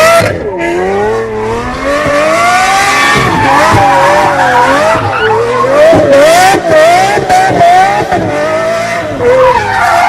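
A high-performance car powersliding: tyres squealing while the engine's pitch rises and falls repeatedly as it is revved and let off.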